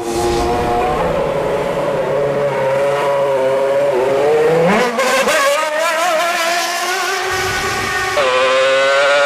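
Formula One car engine running at high revs, a high-pitched screaming note that wavers, climbs about five seconds in and steps up sharply near the end, heard in a tunnel.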